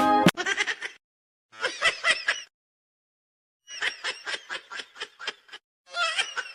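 A person laughing in four short bouts of quick, rhythmic giggles, with brief pauses between them.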